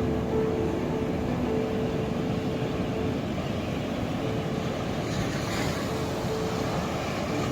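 Ocean surf washing steadily, with a wave surging in about five seconds in, under soft music of long held notes.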